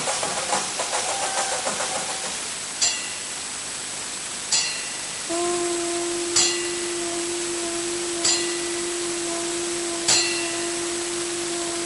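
A bell struck about every two seconds, five strikes each with a brief ringing, over a steady hiss; about five seconds in, a single steady tone comes in and is held under the strikes. Faint music fades out in the first two seconds.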